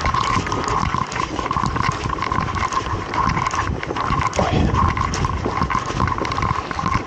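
Wind rushing and buffeting over the microphone of a paraglider flying a few metres above a field, with a steady high hum running underneath.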